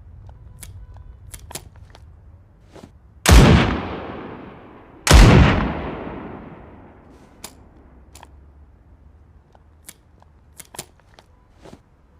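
Double-barreled sawed-off shotgun fired twice, about two seconds apart, each loud blast dying away in a long echoing tail. Faint clicks are heard before and after the shots.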